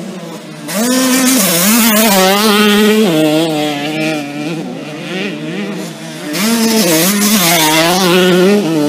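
Motocross bike engines revving hard, the pitch climbing and dropping with throttle and gear changes. Two loud spells, the first about a second in and the second about six seconds in, with a quieter stretch between.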